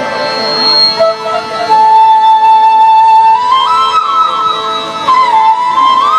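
Instrumental music from a stage sound check: a flute-like melody of held notes with quick slides and ornaments, played over a steady drone.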